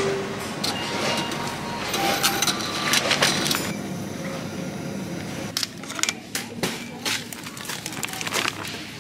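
Supermarket bustle with clicks, knocks and a few short beeps at a touchscreen bottle-return machine. After an abrupt change about a third of the way in, plastic food packaging crinkles and rustles as groceries are packed into a shopping bag.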